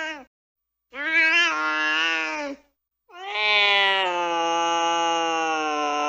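Angry cat yowling: a short call about a second in, then a long drawn-out yowl held at a steady pitch for over three seconds. These are pitched yowls, not hisses.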